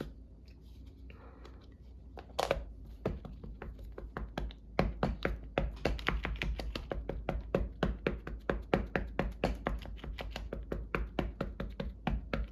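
Rapid, even tapping, about four to five taps a second, starting about two seconds in: ink being dabbed onto an index card.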